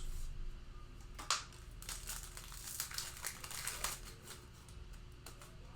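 A Panini Mosaic football card pack's foil wrapper crinkling and crackling as it is torn open and the cards handled. The crackling is densest from about a second in to about four seconds in.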